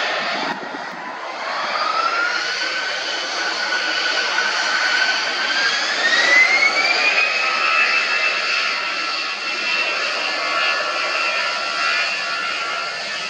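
Airbus A320's twin jet engines spooling up to take-off thrust: a whine rises steadily in pitch over a continuous rush of jet noise and levels off about halfway through as the aircraft begins its take-off roll.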